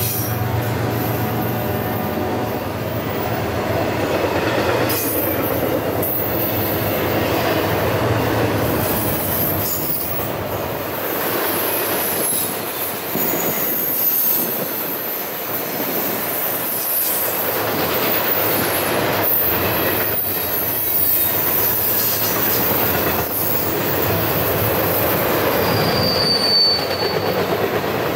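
Double-stack intermodal freight train rolling past: a steady rumble and clatter of well-car wheels on the rails, with thin high wheel squeal now and then and a short, sharp squeal near the end.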